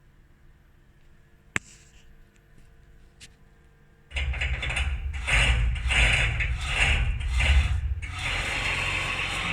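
A single sharp click, then the Haas CNC mill's Z axis starts jogging about four seconds in: a steady machine hum with repeated clicking, ratchet-like, about twice a second. The clicking appears only when jogging slowly, in both directions, and began after the spindle crashed into the tool magazine.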